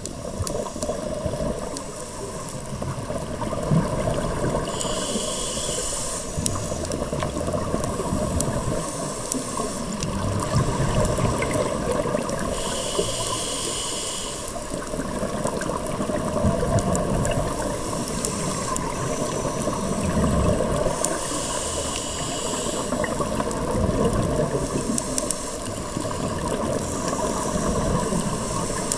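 Scuba diver breathing through a regulator underwater: three hissing inhales about eight seconds apart, with low bubbling rumbles of exhaled air between them.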